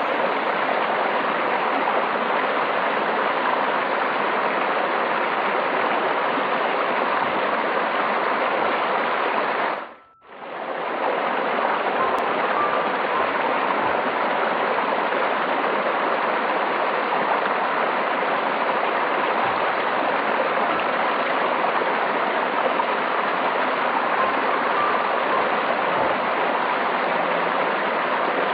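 Stream water flowing with a steady, even rush. About ten seconds in it fades out briefly and comes straight back.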